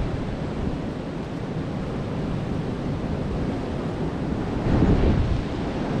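Wind blowing across the microphone: a steady rushing noise with a low rumble, gusting louder about five seconds in.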